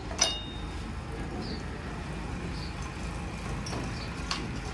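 Metal motorcycle engine parts clinking as they are handled on a workbench: one sharp, briefly ringing clink about a quarter second in and a lighter click near the end, over a steady low background hum.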